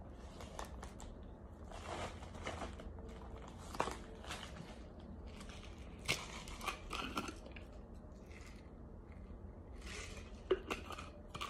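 A person biting and chewing dry chunks of toasted starch, giving soft, crisp crunches at irregular intervals, some louder bites about two, four, six and ten seconds in.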